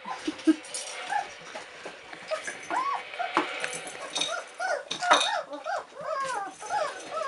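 27-day-old Czechoslovakian wolfdog puppies whimpering and squeaking, many short rising-and-falling whines overlapping and getting busier after a couple of seconds. A couple of sharp knocks come through among them.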